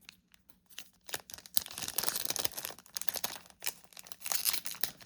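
Foil wrapper of a Topps Chrome Platinum trading-card pack being torn open and crinkled. A few light clicks of handling come first, then dense crinkling about a second and a half in.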